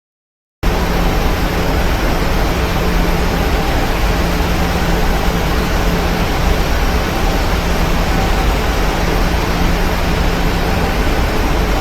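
Steady cabin noise inside a Boeing 737-900 airliner in flight: the even rush of airflow and engines with a low steady hum underneath. It cuts in suddenly about half a second in.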